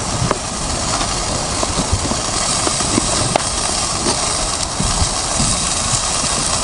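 Shimachō (fatty beef large intestine) sizzling on a charcoal grill: a steady hiss with scattered small pops, its dripping fat making the charcoal flare up.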